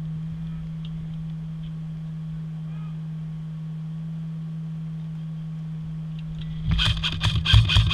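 A steady low-pitched hum on one unchanging tone. About seven sharp clacks come in quick succession near the end, louder than the hum.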